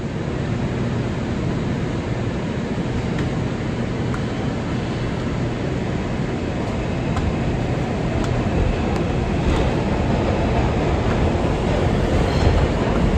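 R142 subway train running at speed, heard from inside the car: a steady rumble of wheels on rails with a few faint clicks, growing a little louder near the end.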